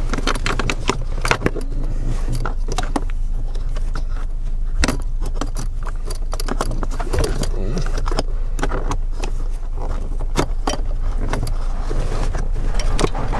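Screwdriver working loose a blower motor mounting screw: scattered sharp clicks and light metal-on-plastic rattles over a steady low hum.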